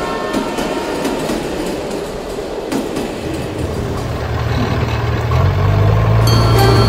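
Toy steam train running on its plastic track, a steady rattling rumble. A low steady engine hum comes in about four seconds in and grows louder near the end.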